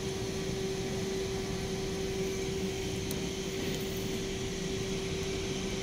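Steady machine hum with one constant mid-pitched tone, unchanging throughout.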